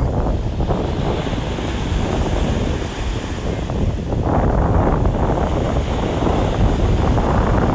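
Wind buffeting the microphone over the sound of sea surf, a loud steady rumble that swells for a few seconds from about halfway through.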